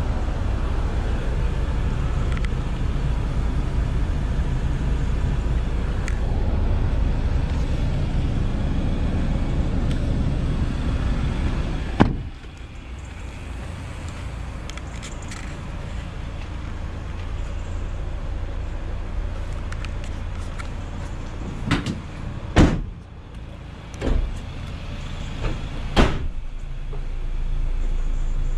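A steady low rumble inside the Ford Transit Custom van's cab, which cuts off abruptly with a click about halfway through. Later come a handful of sharp metal clunks as the van's rear load door and its latch are worked.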